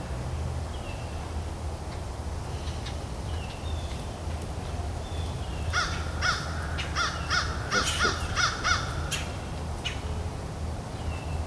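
A bird calling in a quick run of about seven calls, each a short arch in pitch, a little past halfway, over a steady low hum.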